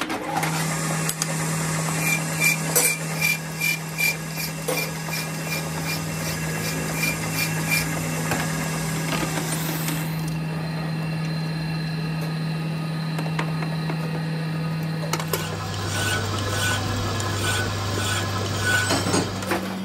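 Metal lathe running with a brake caliper guide pin turning in its chuck: a steady motor hum with a quick run of repeating ticks. Near the end the hum drops lower while a hand file is worked against the spinning pin in rapid, rhythmic strokes.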